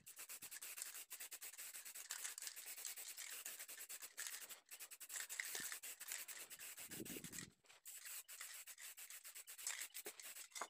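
Cloth rag rubbed in quick, faint strokes over a wooden piece, wiping on a thin coat of varnish.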